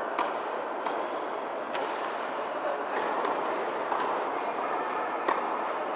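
Tennis balls struck by rackets and bouncing during a rally in an indoor tennis hall: several sharp pops at uneven intervals, the loudest about five seconds in, over the hall's steady background noise.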